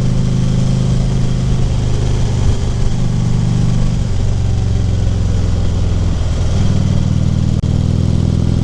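2014 Harley-Davidson Ultra Classic Limited's V-twin engine running steadily on the road, heard from the rider's helmet. The engine note shifts in pitch a couple of times around the middle.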